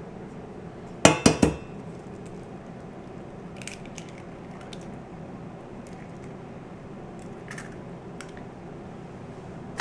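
Kitchenware clinking: a quick cluster of sharp knocks of dishes and utensils about a second in, then a few faint light taps.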